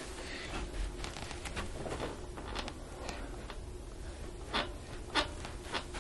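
Quiet rustling and rubbing as the patient is handled on the treatment table, with three short sharp clicks about half a second apart near the end.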